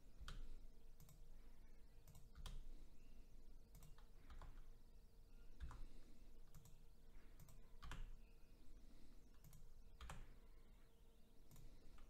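Faint, scattered clicks of computer keyboard keys and mouse buttons, irregular, roughly one a second, over a faint steady hum.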